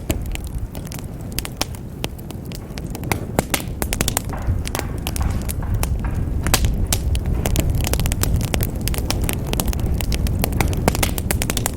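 Wood bonfire crackling, with frequent sharp pops and snaps over a steady low rumble.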